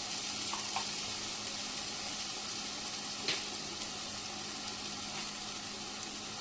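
Dried shrimp (jawla) masala sizzling in hot oil in a pan, a steady hiss that eases slightly, with one faint tick about three seconds in.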